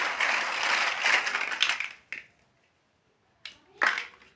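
Loose plastic building bricks being handled: a dense rattling clatter for about two seconds, then after a pause two short clicks near the end.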